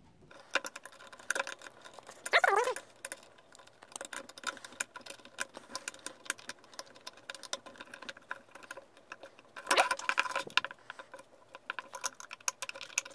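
Small clicks and rattles of a screwdriver working the terminal screws of a plastic switch plate and of wires and plastic parts being handled, with louder bursts of handling about two and a half seconds and about ten seconds in.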